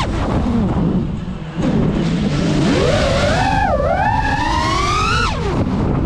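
FPV drone's brushless motors whining, their pitch dropping low as the throttle is cut about a second in. The whine then climbs steadily and falls away sharply near the end, over a steady low rumble.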